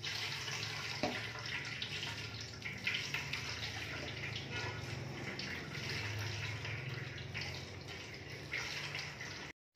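Coconut milk trickling and dripping from a plastic colander of grated coconut into a metal pot as the pulp is squeezed by hand, straining the second pressing. A steady liquid trickle that cuts off suddenly near the end.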